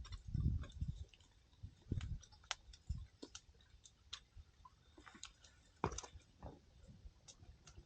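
Burning firewood crackling and popping: irregular sharp snaps, with a few dull low thuds among them.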